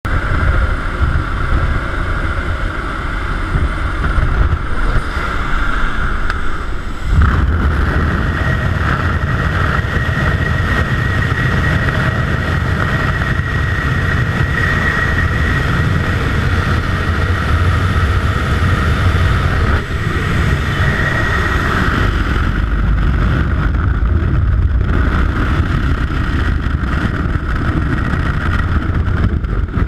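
Steady rush of aircraft engine and slipstream wind at an open jump door, louder about seven seconds in, giving way to the rush of freefall wind over a helmet camera.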